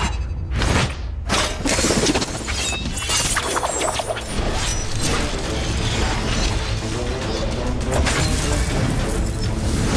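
Staged martial-arts fight sound effects: a dense, rapid clatter of small hard hits from flung Go stones, with swishes of movement, over background music.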